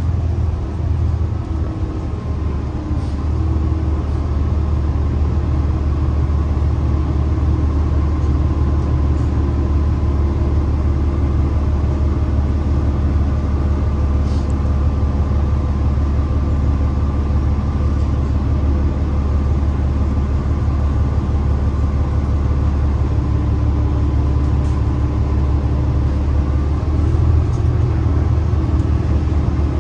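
The cabin of a New Flyer Xcelsior XDE60 diesel-electric hybrid articulated bus under way: the Cummins ISL9 diesel with its Allison H 50 EP hybrid drive gives a steady, loud, deep drone with a steady whine over it. A few faint clicks and rattles come and go.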